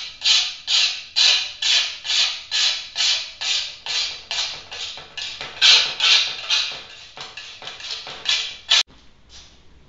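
Metal scraper blade scraping caked gunk off a gas grill's glass panel in quick, even strokes, about two and a half a second. The strokes end with a sharp click near the end.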